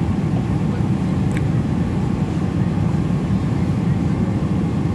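Steady low rumble of an airliner's engines and airflow heard inside the passenger cabin during the climb after takeoff, with one faint tick about a second and a half in.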